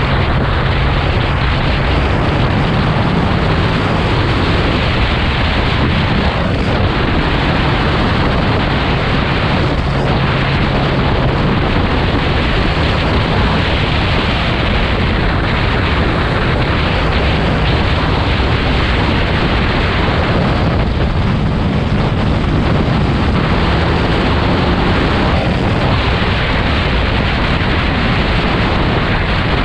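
Kawasaki motorcycle riding at steady speed: the engine runs steadily under heavy wind rush on the microphone, and its note shifts a little now and then.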